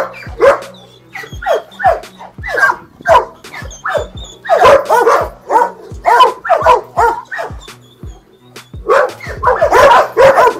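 Dog barking in rapid volleys of short, sharp barks, several a second, with two brief pauses between volleys.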